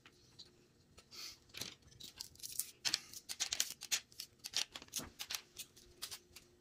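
Small plastic parts of a snack-hat game being handled and snapped together: a busy run of clicks, rattles and rustles, thickest in the middle.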